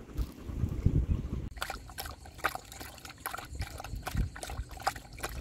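Water lapping and trickling against the aluminium hull of an anchored tinny in a running tide. A low rumble at first gives way, about a second and a half in, to a rapid, irregular patter of small slaps and splashes.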